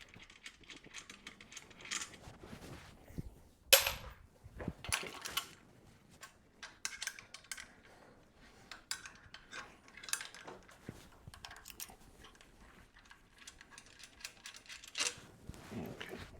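Metal clinks and clicks of spanners working the nuts and bolts off a metal bed frame, with a sharp ringing clink about four seconds in and a few more scattered strikes.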